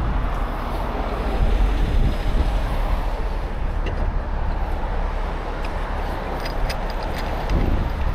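Heavy rotator tow truck's diesel engine running steadily at idle, with a few light clicks about four seconds in and again near the end.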